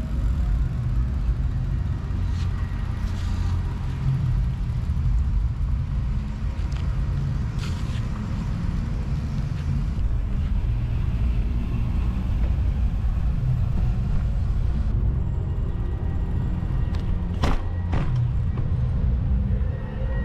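Steady low rumble of riding a bicycle: wind buffeting and road noise on a bike-mounted camera. Two sharp clicks about half a second apart near the end.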